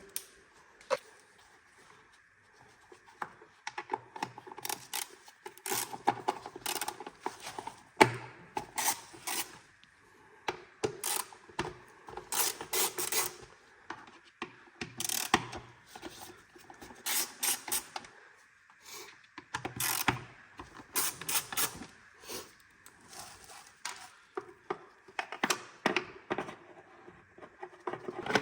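Small hand ratchet wrench clicking in short bursts, with hard plastic parts of a scooter's air-filter box being handled and knocked.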